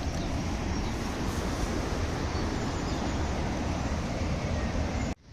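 Steady rumble and hiss of a bicycle rolling along a path, heard from a camera riding on the bike or rider, with no chain noise from the belt-drive hub-gear hybrid. It cuts off abruptly near the end.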